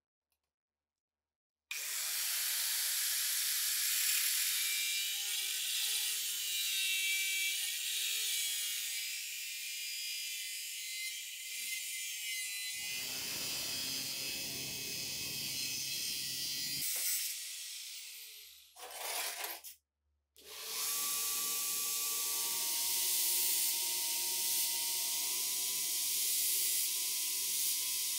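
Continuous scraping and rubbing of a hand or power tool working on the old ShKAS machine gun's parts during its restoration. It breaks off about eighteen seconds in, gives a short burst, then starts again.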